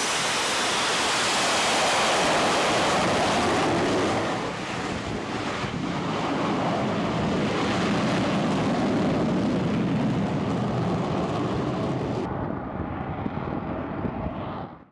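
F-35B Lightning II's jet engine at high power with its lift fan engaged, making a short takeoff and climbing away. Loud, steady jet noise that dips about four seconds in, loses its high end near the end and then fades out.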